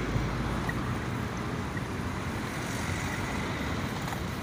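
Steady rushing noise of road traffic passing close by, mixed with wind buffeting the phone's microphone.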